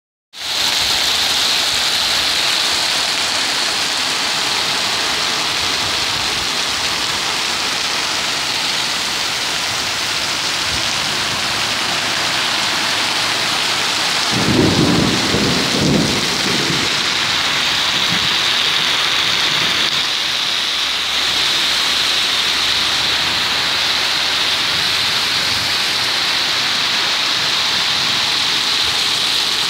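Heavy rain falling steadily, with a brief low rumble about halfway through.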